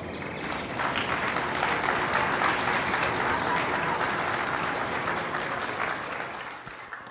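Church congregation applauding after a song, the clapping building over the first second, holding steady, then dying away near the end.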